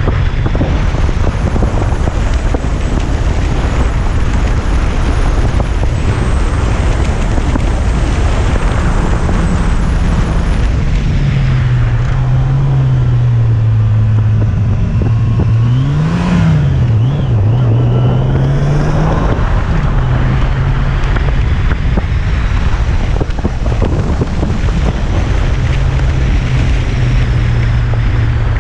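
Yamaha FJR1300's inline-four engine running on the move under heavy wind noise. The engine note drops as the bike slows into a hairpin, rises and falls briefly midway, then climbs and holds steady as it pulls away.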